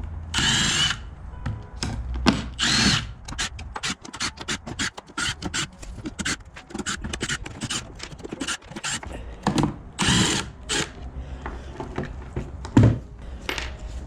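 Power drill running in three short bursts, with clicks and knocks of handling between them.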